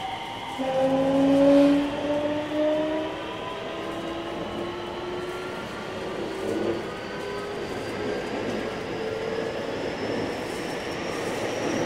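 JR West 321 series train's Hitachi IGBT VVVF inverter and traction motors whining as the train accelerates, with several tones climbing steadily in pitch over wheel and rail noise. A louder low pair of tones comes in about a second in.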